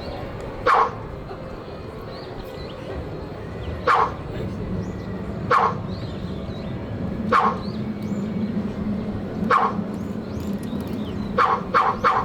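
A person sneezing again and again, about eight short, sharp sneezes a second or two apart, the last three in quick succession near the end.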